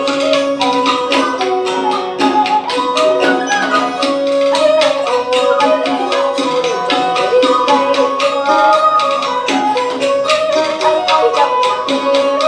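Traditional Vietnamese water-puppet music: quick, steady hand percussion under a melody whose notes slide up and down.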